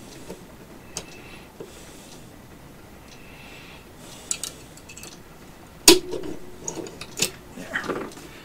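Small metallic clicks and scrapes of a CZ-52 pistol's slide and roller-locking parts being handled during reassembly. A sharp metal snap about six seconds in is followed by a couple of seconds of sliding and rattling as the parts seat.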